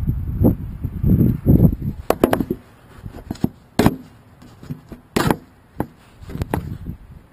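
Rustling and handling noise close to the microphone from the handler's clothing and movements, with about half a dozen sharp clicks and knocks.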